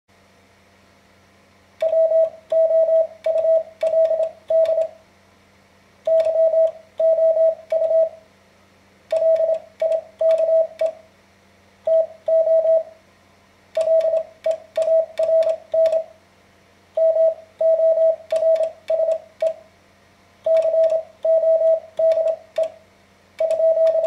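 Morse code sent by hand on a straight key: a single mid-pitched sidetone beeping in short dits and longer dahs, grouped into letters and words, with a sharp click at the key strokes. The beeping starts about two seconds in.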